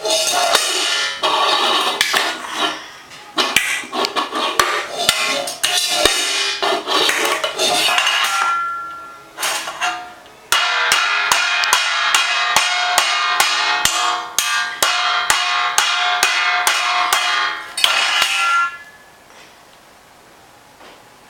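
Metal cooking pots being banged by a toddler, repeated clanging strikes that leave the metal ringing. A long run of quick, evenly spaced bangs comes in the second half, and the banging stops near the end.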